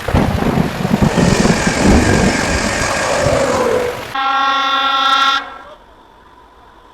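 A train rumbling loudly for about four seconds, then one horn blast of a little over a second, after which the sound drops to a faint steady hum.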